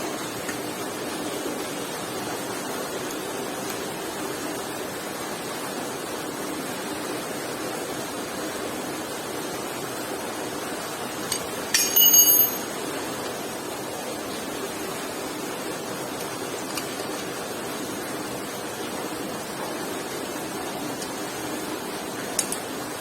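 Steady hiss of background noise, with one brief ringing metallic clink about halfway through as metal parts knock together during bicycle disassembly.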